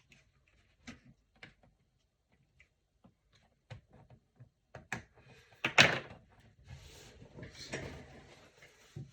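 Clicks and knocks of a screwdriver bit prying at the edge of a Lenovo IdeaPad Gaming 3 laptop's bottom cover, with one loud knock about six seconds in followed by a couple of seconds of scraping.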